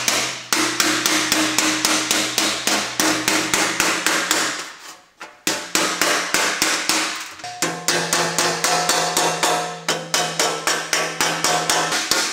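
Rapid hammer blows on the edge of a sheet-metal pedal-car side panel held over a steel tool post, metal on metal, about five strikes a second. The hammering stops briefly about five seconds in, then resumes.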